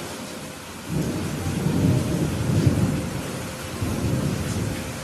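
Steady rain hissing, with a roll of thunder that rumbles in about a second in, swells and fades away near the end.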